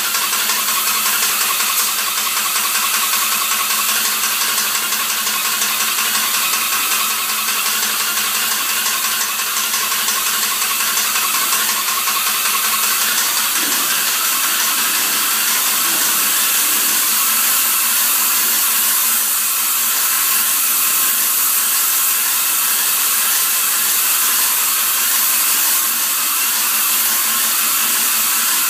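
Powered spray machine running steadily: a constant hiss of spray with a fast, fine mechanical pulsing under it.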